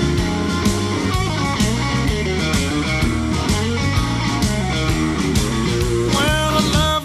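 Background music: an instrumental stretch of a blues-rock song led by electric guitar over bass and drums, with a steady beat and no singing.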